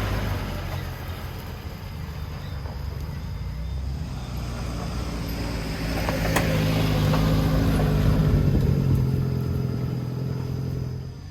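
Off-road vehicle engine running at low speed, its note growing louder about halfway through and easing off toward the end, with one sharp click about six seconds in.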